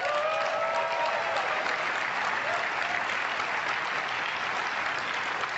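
Large audience applauding steadily, with one voice cheering in the first second and a half.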